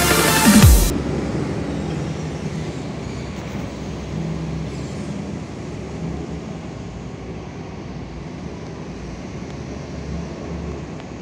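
Electronic intro music ends in the first second with a steep falling pitch sweep, then gives way to a steady low hum of distant diesel engines and machinery across an open container yard.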